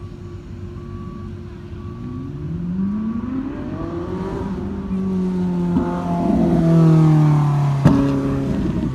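Ferrari 458 Italia's V8 engine climbing in pitch as the car accelerates, then running loudest and falling in pitch as it sweeps past close by. A sharp click comes near the end.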